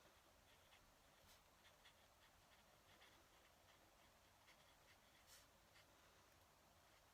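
Faint fountain pen nib scratching across paper in short, irregular strokes, with an occasional light tick.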